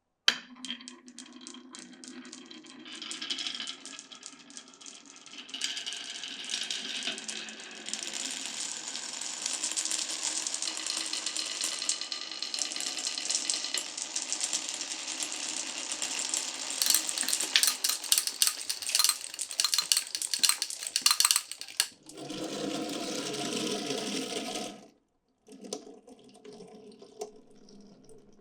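Glass marbles rolling and clattering down a marble run track, with dense rapid clicking where several marbles hit the pieces at once. Near the end a steadier rolling sound stops suddenly, followed by quieter rolling.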